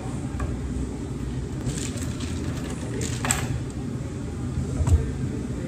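Handling sounds at a blender jar over a steady low hum: a scoop scraping about three seconds in and a single knock near the end as ingredients go into the jar.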